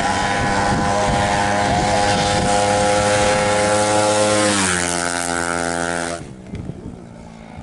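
Drag-racing motorcycle engine at high revs, held at a steady high pitch, then dropping in pitch about four and a half seconds in and fading away by about six seconds.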